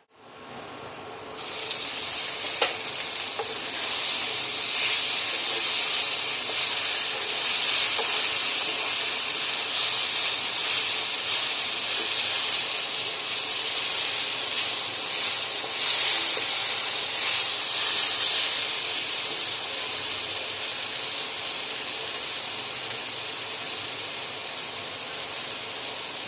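Okra and tomato sizzling as they fry in a pan, a steady hiss that comes in about a second and a half in.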